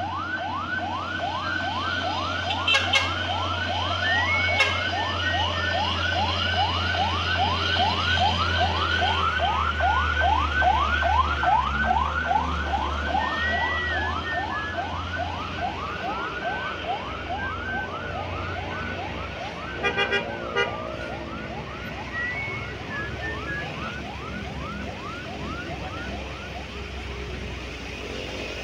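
A siren in fast yelp mode, its wail rising over and over about two and a half times a second and fading out near the end. Under it runs the low drone of truck engines passing close by, with a few short sharp sounds about twenty seconds in.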